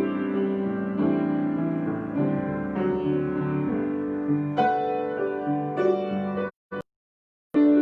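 Solo piano improvisation: sustained chords with melody notes struck over them. The playing breaks off suddenly near the end into about a second of silence, then starts again.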